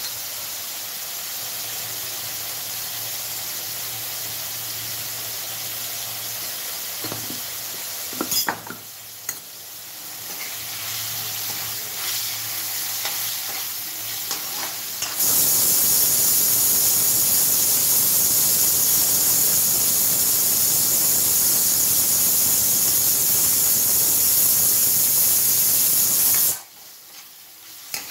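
Sliced bitter gourd sizzling in hot oil in a kadai, stirred with a metal ladle, with a few clinks of ladle on pan about a third of the way in. About halfway a louder, harsher hiss starts abruptly and cuts off suddenly near the end.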